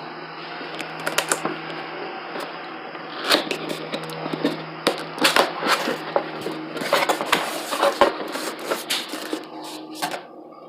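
Cardboard box and packaging being opened and handled: a run of rustles, crinkles and knocks, busiest from about three seconds in, over a low steady hum.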